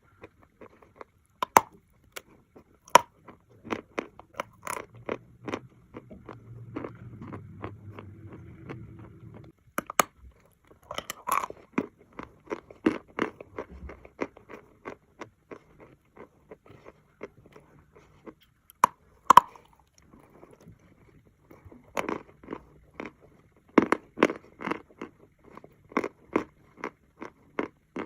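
Close-up crunching of Maria chalk being bitten and chewed: many sharp, irregular crunches, with a few loud snapping bites scattered through.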